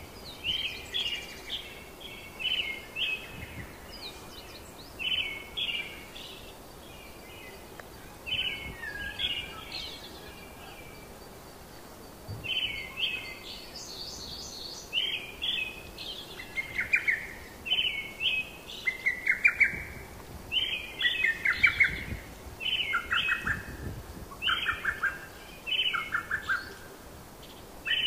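Songbirds singing: short chirping phrases repeated about once a second, growing louder and busier after the middle, when lower rattling trills join in.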